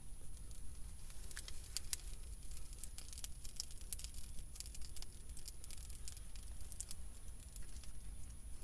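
A burning tinder bundle of dry grass and small twigs crackling and rustling: a quick, irregular string of sharp snaps as the bundle is handled and set down.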